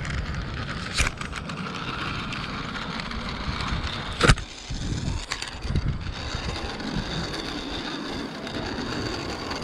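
Zipline trolley pulleys rolling along a steel cable: a steady rushing whir, with a sharp knock about a second in and a louder one a little past four seconds. A faint high whine joins in the second half.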